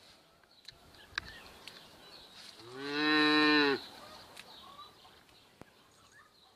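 A cow moos once, a steady call about a second long near the middle, with a few faint clicks around it.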